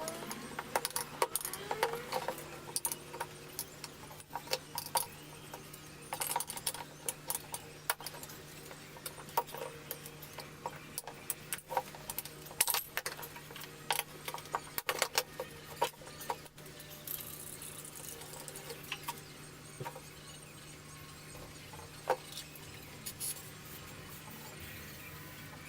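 Repeated light metallic clinks and clicks, like tools and small metal parts being handled, over a steady low hum.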